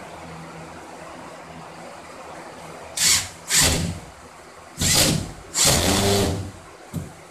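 Power drill driving screws into sheetrock: four short runs of the motor, each under a second, starting about three seconds in, with a brief blip near the end.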